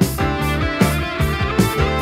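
A 1980 yacht-rock dance single playing from a 7-inch vinyl record on a turntable: band music with guitar, bass and a steady drum beat.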